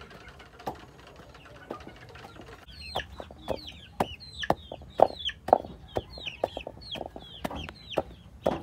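A wooden pestle pounds into a wooden mortar, giving sharp knocks that settle into about two a second after a few seconds. Young chickens make short, high, falling cheeps throughout, with some clucking.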